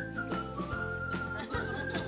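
Background music: a high, whistle-like melody over steady bass notes and a regular beat, about two to three beats a second.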